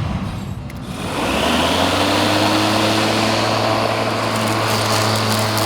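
24-volt battery-electric lawnmower starting up about a second in, its motor and blade spinning up with a rising whine, then running steadily.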